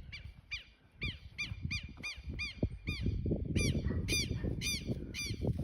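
A bird calling over and over, a short harsh rising-and-falling note about three times a second, under a low rumbling noise that grows louder about halfway through.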